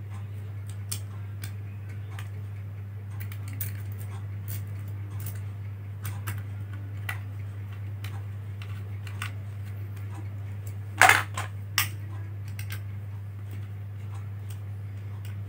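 Small metal clicks and taps of a screwdriver working the screws that hold a hard drive in a laptop HDD caddy, with a louder clack about 11 seconds in. A steady low hum runs underneath.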